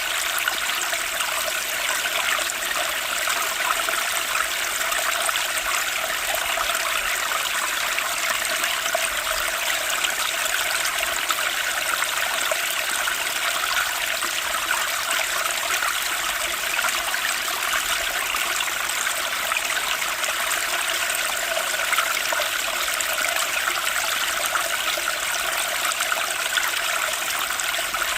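Running water flowing steadily, an even, unbroken wash of sound.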